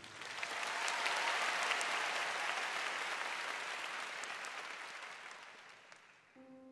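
Arena crowd applauding, swelling over the first second and dying away by about six seconds. Near the end a steady held tone starts.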